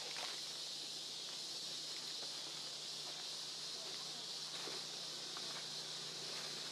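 Steady high-pitched drone of insects in the forest, with a few faint clicks.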